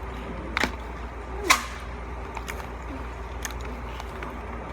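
Two sharp crunches about a second apart, the second louder, then a few faint clicks: biting into crispy KFC fried chicken.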